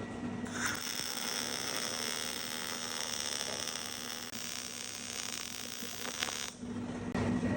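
Cobot welding robot's welding arc running for about six seconds as a steady hiss with a high edge, starting about half a second in and cutting off sharply near the end.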